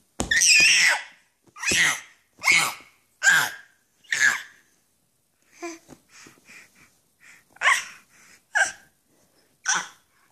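A baby making a run of short, breathy, excited huffs, about one a second, with softer ones in between, while patting his hands on a leather ottoman.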